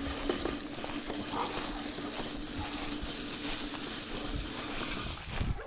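Luba 5000 AWD robot lawn mower driving across the lawn, its electric drive motors giving a steady whine that stops about five seconds in, with a short knock near the end.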